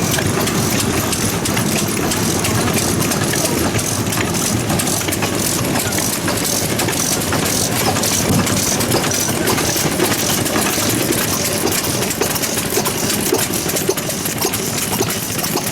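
Old Japanese stationary farm engines (hatsudōki) running at a steady idle, a continuous mechanical clatter.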